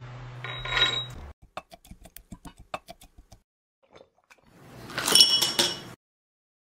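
Pomegranate arils tipped into an empty glass tumbler: a brief rush, then a run of small clicks as the seeds drop onto the glass. About four and a half seconds in, a louder pour into the glass with a light ringing from the glass.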